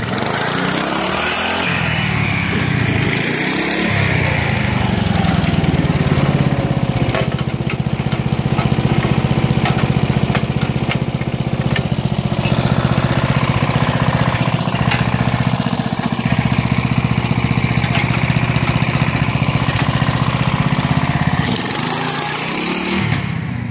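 Riding lawn tractor engine running hard under load while pulling a car on a tow strap through snow. Its pitch swings up and down in the first few seconds, then holds steady at high revs, and falls off briefly near the end.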